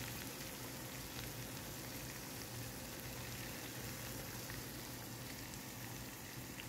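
Pepper-crusted beef tenderloin steaks and garlic cloves frying in oil in a stainless steel pan: a faint, steady sizzle with occasional small pops.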